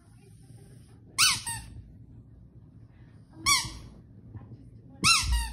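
Plush squeaky dog toy squeaking as a dog bites and chews it, three squeezes about two seconds apart, each a short squeak rising and falling in pitch, some with a quick second squeak.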